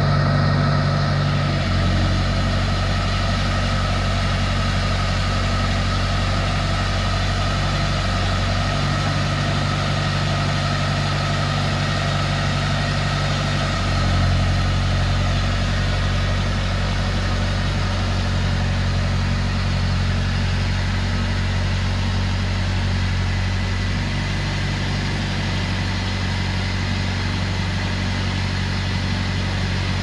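Heavy equipment engine running steadily, its speed shifting up and down a few times, with a brief swell about halfway through.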